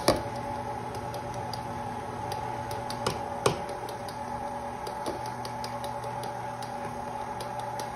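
Electric stand mixer running with its beater turning in a metal bowl of batter: a steady hum with light, scattered ticking. Two sharper knocks come, one at the very start and one about three and a half seconds in.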